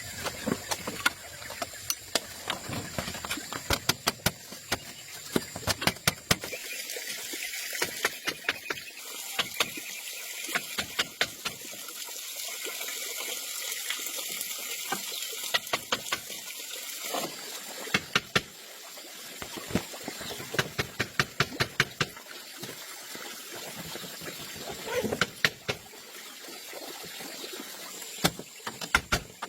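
Water running and splashing, with many sharp clicks and knocks scattered throughout.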